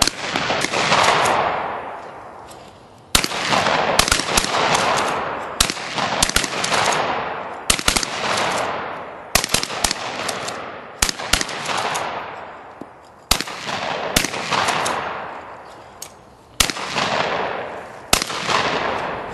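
Shotguns firing at flying clay targets: a string of sharp shots, often in quick pairs, coming every one to three seconds. Each report trails off over a second or two.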